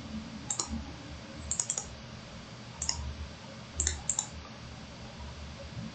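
Computer mouse clicking: about ten short, sharp clicks, several of them in quick pairs like double-clicks.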